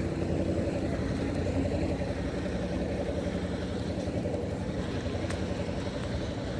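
Wind buffeting the phone's microphone outdoors, a steady, fluttering low rumble.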